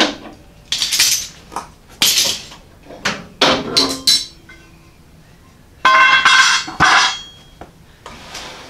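Steel clamps being loosened and set down on a concrete floor: a series of separate metallic clanks and clinks, with a louder, ringing metal clatter about six seconds in.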